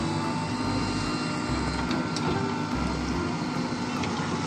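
Diesel engine of a JCB 3DX backhoe loader running steadily while its backhoe arm digs in mud.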